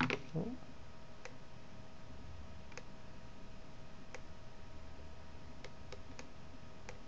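Computer mouse buttons clicking now and then, about seven single clicks spread over several seconds, over a faint steady hum.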